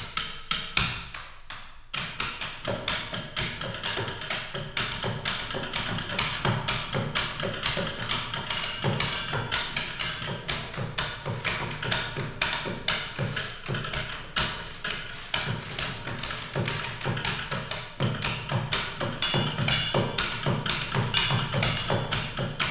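Percussion ensemble of office supplies, with pencils tapping, computer keyboard keys clicking and a plastic water bottle struck, playing a dense, steady rhythm of rapid taps and clicks over low thuds. A brief lull comes about a second or two in, then the tapping fills back in.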